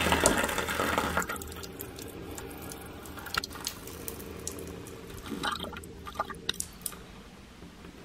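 A man urinating into a dirty shower tray, the stream splashing onto its floor and running down the drain. It is loudest in the first second, then thinner with scattered drips.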